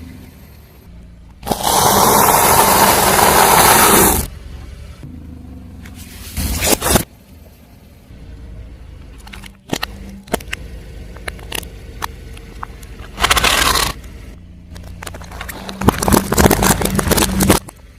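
A car's tyres rolling over objects and crushing them. There are four loud crushing bursts over a low, steady engine rumble, the longest about two and a half seconds near the start, with scattered small cracks and clicks in between.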